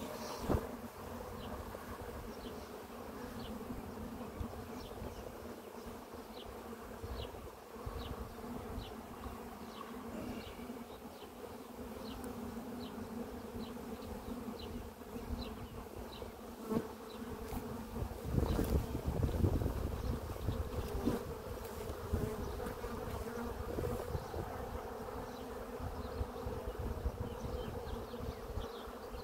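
Honeybees from an opened nucleus colony buzzing in a steady, dense hum. A couple of sharp knocks come from the hive tool prying wooden frames, and a low rumble rises about two-thirds of the way through.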